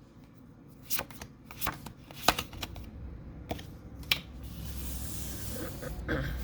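Pokémon trading cards and booster-pack wrapper being handled: a few sharp taps and clicks, then about two seconds of rustling near the end.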